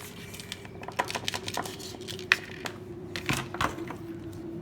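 Irregular small clicks and taps of plastic parts being handled and pushed together as a solder wire holder is fitted onto a soldering gun, over a faint steady hum.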